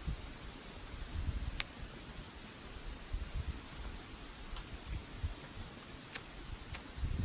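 Wood fire burning in a fire pit: a steady hiss broken by a few sharp crackles, one about a second and a half in and several in the last few seconds, over a low, gusty rumble of wind on the microphone.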